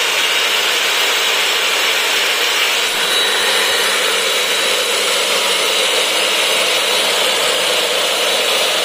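Makita M2300 compound miter saw's universal motor running at full speed with no load: a steady high whine with no cutting. This is a test run of the freshly reinstalled motor.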